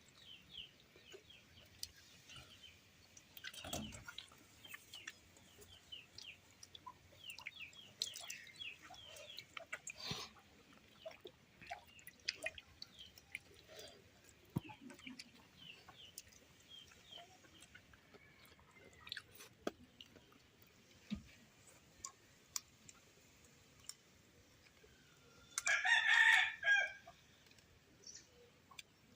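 A rooster crows once near the end, a loud call of about a second and a half, over scattered small bird chirps and occasional faint clicks.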